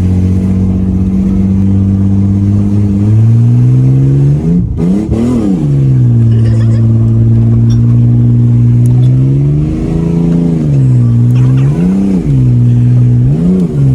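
Car engine running and being revved as the car drives: its pitch steps up about three seconds in, climbs and falls back, holds steady, then rises and drops three more times in shorter surges near the end.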